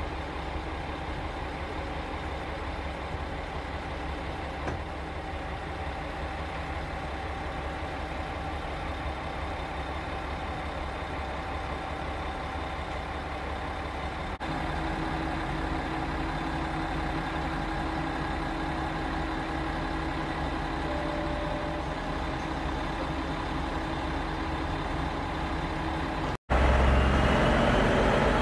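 Diesel railcar's engine idling at the platform, a steady hum. Near the end the railcar pulls away, louder, with a faint rising whine.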